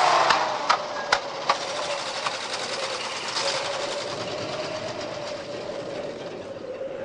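Vintage truck engine running with a fast, even clatter and a steady hum, with a few sharp knocks in the first two seconds.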